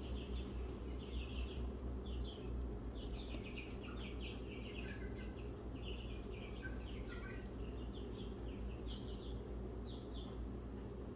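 Small birds chirping in runs of short, quick calls, over a steady low hum.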